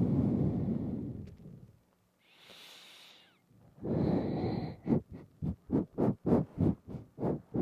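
A person breathing through the nose right up against a binaural microphone. There is a long exhale, then a softer, airy breath in, then another breath. From about five seconds in comes a run of short, quick sniffs, about three a second.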